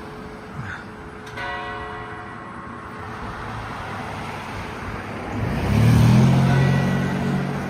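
Church bell ringing: one stroke about a second and a half in, its tones ringing on and slowly fading. Then a motor vehicle passes, its engine rising in pitch and becoming the loudest sound around six seconds in before easing off.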